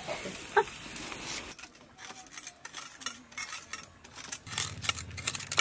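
Light clinks, taps and rubbing of steel bowls and utensils as hands work in a steel bowl, scattered irregularly; a soft hiss fades out in the first second or so.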